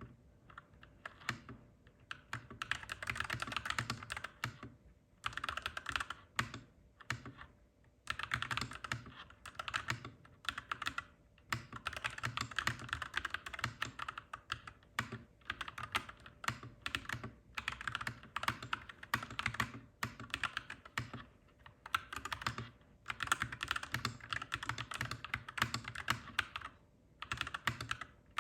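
Clacky mechanical keyboard being typed on steadily: rapid runs of key clicks broken by brief pauses every few seconds.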